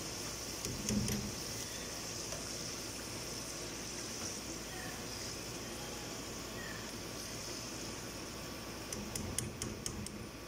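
Potato slices frying in hot oil in a pan, a steady sizzle. A metal slotted spoon clinks about a second in and several times in quick succession near the end.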